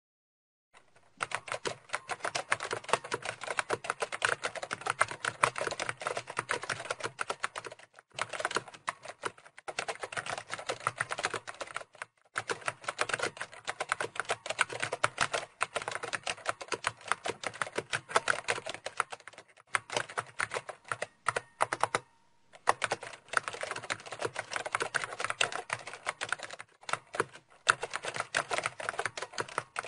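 Steady typing on a computer keyboard: a dense run of key clicks starting about a second in, broken by several short pauses.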